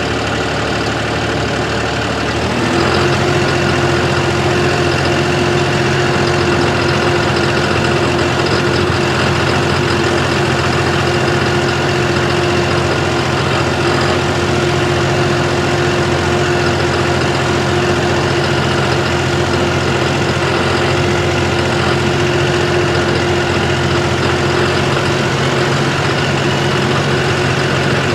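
John Deere 5060E tractor's diesel engine running steadily, stepped up to a higher, louder speed about two and a half seconds in and held there. At this speed the engine has a knock that the owner reports above 1500 rpm, though it is only 27 hours old.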